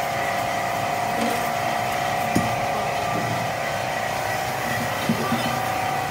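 Steady hum of a running machine with a constant whine, and a couple of short sharp knocks about two and a half and five seconds in.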